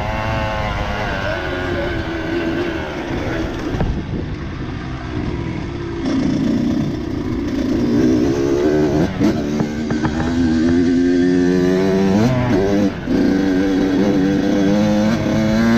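Dirt bike engine revving up and down over and over, its pitch rising and falling as the throttle is worked.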